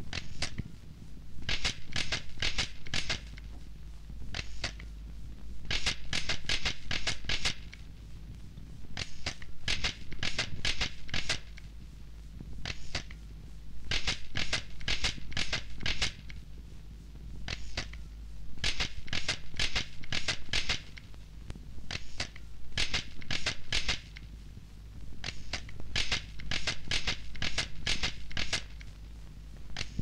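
Sharp clicks in quick bursts of several at a time, with short pauses between, over a low steady hum.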